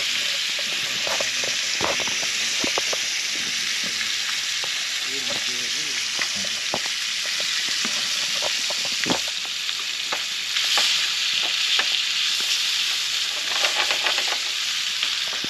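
Fish frying in hot oil in a pan: a steady sizzle with frequent short, sharp crackles and pops throughout.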